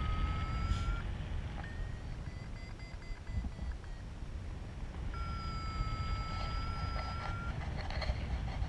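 Wind rushing over the microphone in paragliding flight, with a flight variometer sounding long steady electronic tones: one that ends about a second in, a fainter, higher one from about 2 to 3.5 seconds, and another from about 5 to 7.5 seconds.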